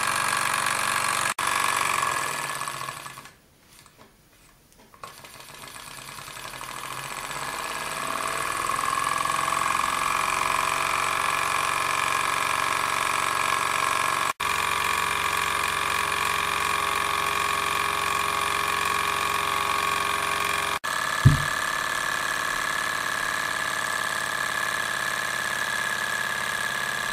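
PM Research Stirling hot-air engine model running, its flywheels, crank and pistons giving a steady mechanical whir. The sound dips away about three seconds in and builds back over the next few seconds, and a single sharp thump stands out about three-quarters of the way through.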